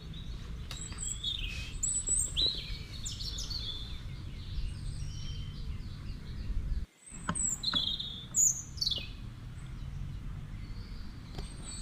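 Birds chirping and calling outdoors: many short high chirps and whistled notes, some sliding down in pitch, over a steady low background rumble. The sound breaks off briefly about seven seconds in.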